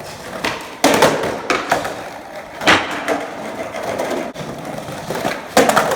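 Skateboard rolling over pavement, with several sharp wooden clacks of the board striking the ground, the loudest about three seconds in and a quick cluster near the end.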